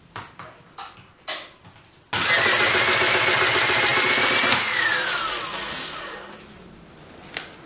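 Motor in a Hyundai HAT12 air circuit breaker starting suddenly after a few light clicks, running loudly with a rising whine for about two and a half seconds, then cutting out and winding down in a falling whine. The motor is charging the breaker's closing spring and stops when the spring is fully charged.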